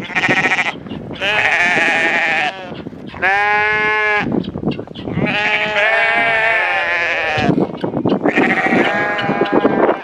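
Penned goats or sheep bleating loudly: about five drawn-out, quavering bleats in quick succession, some of them overlapping as more than one animal calls.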